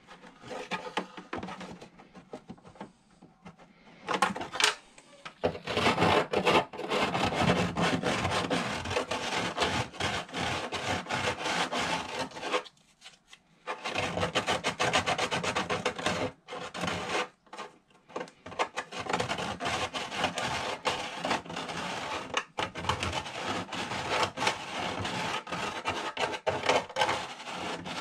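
Hand-sanding the edge of a round cut-out in a panel with a small piece of sandpaper: rapid back-and-forth rubbing strokes, stopping briefly about halfway through, to enlarge the hole so the display fits.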